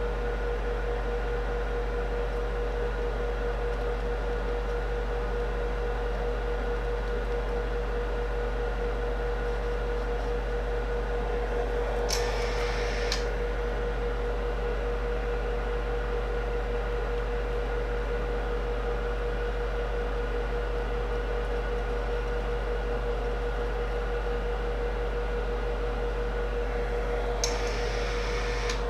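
Steady machine hum with a constant mid-pitched tone over a low drone. It is broken by two short hisses, one about twelve seconds in and one near the end.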